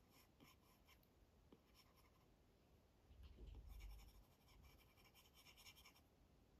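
Apple Pencil tip scratching and tapping on an iPad's glass screen in quick, short sketching strokes, sparse at first and busiest from about three seconds in until near the end. A soft low bump comes about three and a half seconds in.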